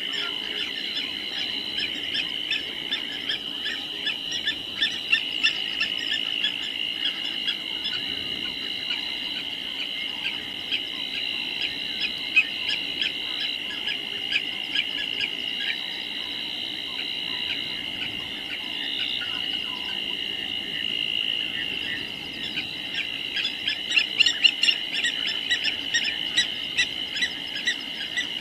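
Steady night-time chorus of calling insects and frogs: a continuous high trilling with rapid clicking calls, which grow busier and louder near the end.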